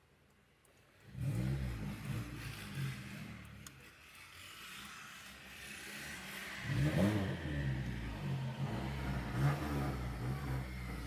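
Car engine revving, coming in suddenly about a second in, with a second rise in revs around the middle.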